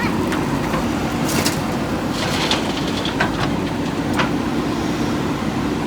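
Diesel engine of a JCB 3DX backhoe loader running steadily, with a few sharp knocks scattered through the middle of the stretch.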